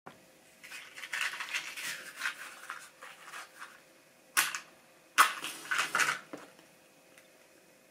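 Rustling and scraping handling noises in irregular bursts, with a short sharp scrape about four and a half seconds in and a louder flurry a second later.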